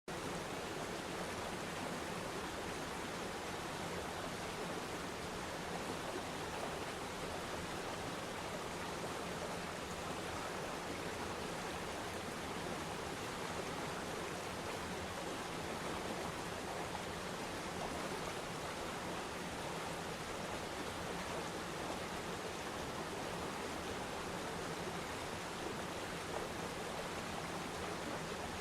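Steady, even rushing noise of running aquarium water, like a small stream, with no breaks or changes.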